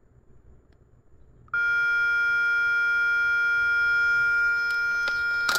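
A Notifier AMG-1 audio message generator's built-in local speaker switches on abruptly about a second and a half in, sounding a steady electronic horn tone that holds without change. A sharp click comes near the end.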